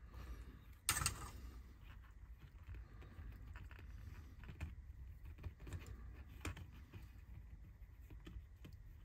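A sharp clack about a second in as the soldering iron is set down, then scattered light clicks and rattles of fingers handling thin wires and a small plastic motor housing.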